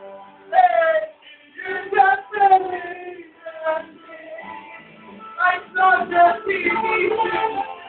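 Music with singing: sung notes that are held and glide in pitch, with both female and male voices.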